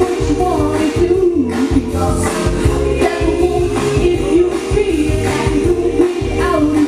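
A woman singing a pop song live into a handheld microphone over amplified music with a steady beat.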